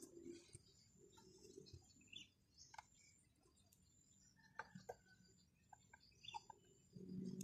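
Near silence with a few faint clicks and taps of plastic toy parts being handled and pressed together, and faint bird chirps in the background. Music comes in near the end.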